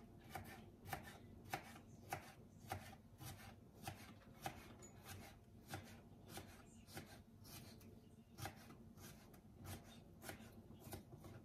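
Kitchen knife dicing a cucumber on a plastic cutting board: a steady run of faint, quick chopping taps, two or three a second.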